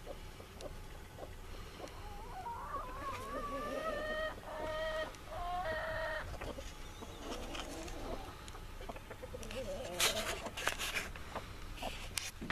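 A domestic chicken gives one long, pitched call about two seconds in. It rises at first, holds, then breaks into several short notes over about four seconds. Near ten seconds there is a brief cluster of sharp noises, the loudest part.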